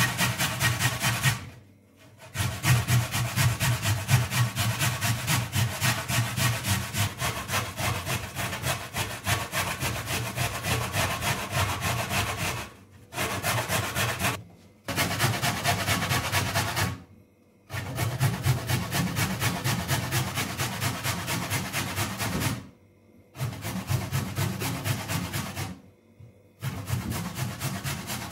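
Carrot being grated on a metal box grater onto a plate: quick rasping strokes, several a second, in runs broken by short pauses.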